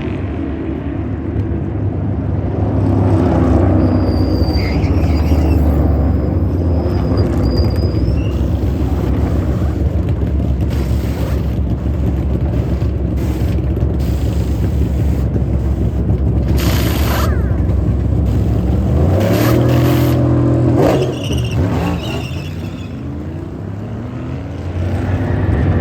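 NASCAR Cup Series stock cars' V8 engines running at race speed around the track, a loud steady drone of the field. About twenty seconds in, a group of cars passes close by, their pitch falling as they go away.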